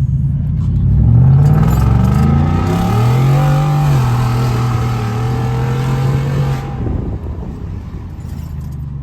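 The Ford 5.0 Coyote V8 of a 2018 F-150 on a cold start, run through a custom cat-back exhaust that ends in an open dump with no tip. It flares up about a second in and holds a high cold idle. About four seconds in it drops to a lower, steady idle.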